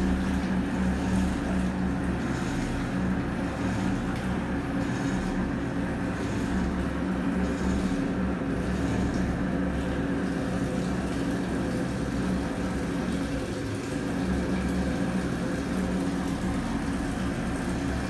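Panasonic 8.5 kg top-load washing machine with TD inverter motor running its wash cycle: a steady motor hum with water and suds churning in the tub.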